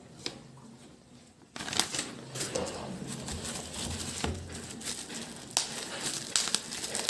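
Packaging of a boxed pair of earbuds being handled: crinkling and rustling with many small clicks, starting about a second and a half in after a quiet moment.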